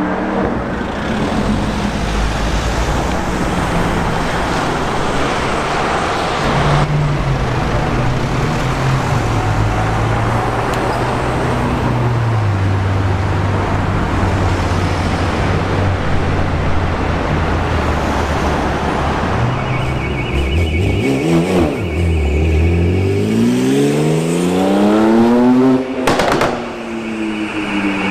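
Performance car engines running hard in a string of short clips: the engine note drops in steps a few times, then climbs in a long rising rev that cuts off suddenly near the end.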